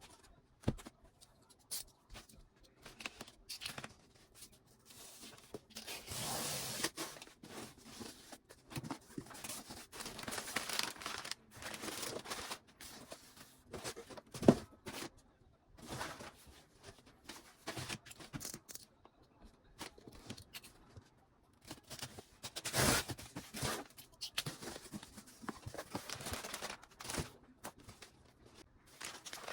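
Irregular rustling, crinkling and tearing of material being handled, in bursts of a second or two, with a single sharp click about halfway through.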